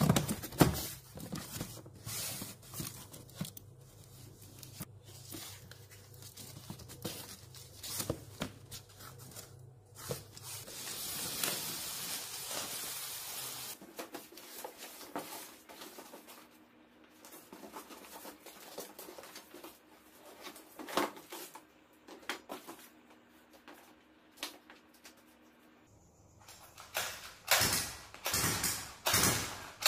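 Cardboard boxes and their plastic and tape wrapping being handled and torn open: rustling, crinkling and scraping, with one longer tearing noise about eleven seconds in and a cluster of louder knocks and crinkles near the end.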